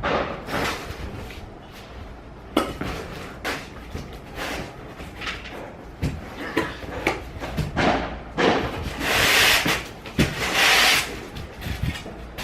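Handling noises: a series of irregular knocks, bumps and clatters, with two longer rustling or hissing noises of about a second each near the end.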